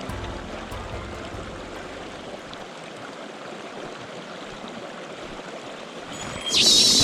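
Mountain stream water running steadily. A sudden, louder high-pitched noise starts near the end.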